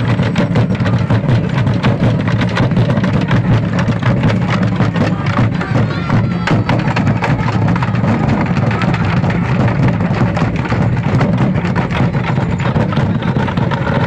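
Loud live percussion music for a dance performance: drums and other struck percussion beating a dense, driving rhythm.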